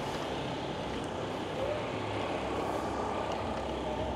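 Street traffic: a motor vehicle running nearby, a steady rushing noise with a low rumble.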